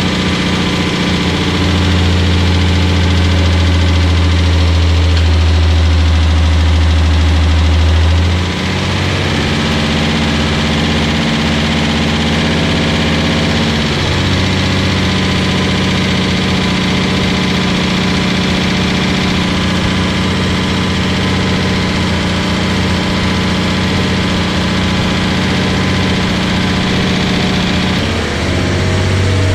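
Datsun 280Z's freshly rebuilt L28 straight-six running steadily at a fast idle of around 2,000 rpm during engine break-in, held high so oil reaches the new bearings and mating surfaces. Its pitch shifts slightly a few times as the throttle is adjusted.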